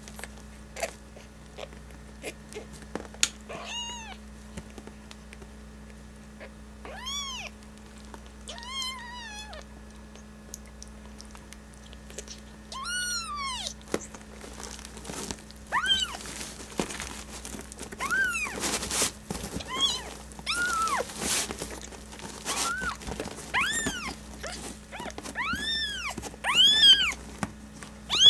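Newborn kitten mewing in short, high-pitched cries that rise and fall in pitch, a few at first and then more often toward the end, while being tube-fed milk through a catheter. A steady low hum runs underneath.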